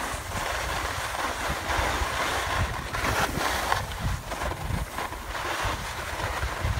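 Skis sliding and scraping over packed snow in a continuous hiss that swells and fades as the skier turns, with low wind rumble on the microphone.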